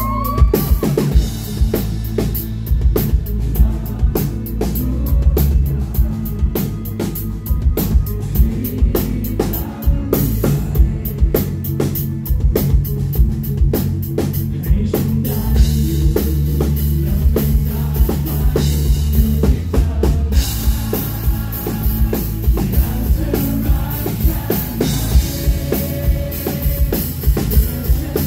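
Live rock band playing an instrumental passage without singing: a drum kit with rapid, dense hits over distorted electric guitar and bass.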